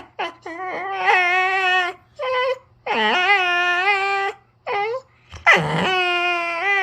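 Jindo dog whining and moaning in long drawn-out calls, three long ones with two short ones between, in protest as someone pretends to take away the sock it is guarding.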